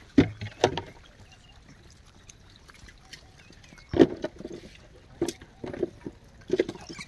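Gray langurs feeding around plastic trays on bare dry ground: scattered short knocks, scuffs and rustles, the loudest about four seconds in.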